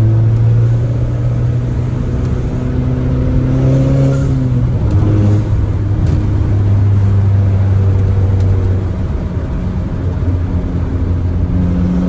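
Turbocharged VW engine with an ECS downpipe and the exhaust cutout open, heard from inside the cabin while driving. Its note climbs slightly, drops about five seconds in, then holds steady.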